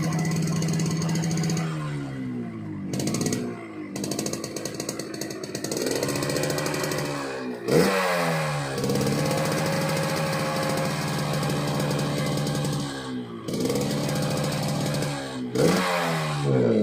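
Yamaha RX-King two-stroke single-cylinder motorcycle engine revved and held at high revs, then let fall and blipped back up, four times over. Its exhaust gives the crisp, rasping 'garing ngorok' note.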